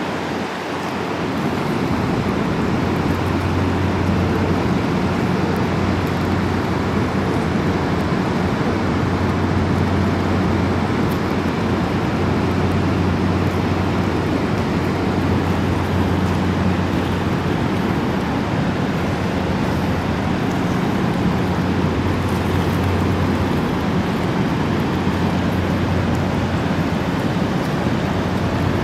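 Whitewater rapids of the upper Niagara River rushing steadily, a loud even roar of water, with a low steady hum underneath.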